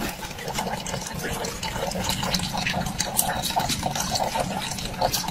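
Water running and splashing steadily inside a plastic bottle, with many small splashes and drips.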